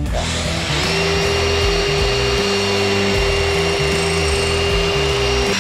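Handheld electric drill running as it bores into the steel jaw of a pair of locking pliers, rounding out a seat for a rivet head. The motor spins up about a second in, holds a steady whine and stops near the end, with rock music underneath.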